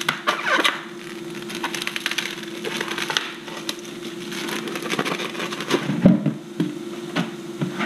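Plastic wrap crinkling and a foam meat tray being handled as ground beef is pulled out into a plastic bowl: a run of crackles and soft clicks. A steady hum runs underneath.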